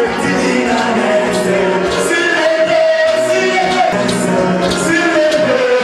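Music with singing voices over sustained notes and a steady beat of about two strikes a second.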